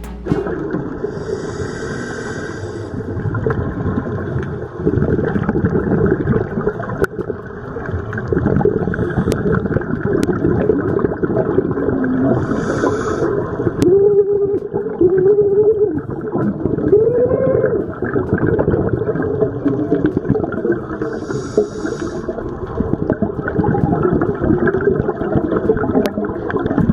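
Muffled underwater sound from a scuba dive: dense rumbling and bubbling, with three short hissing breaths from a scuba regulator about ten seconds apart. Some wavering tones come in the middle.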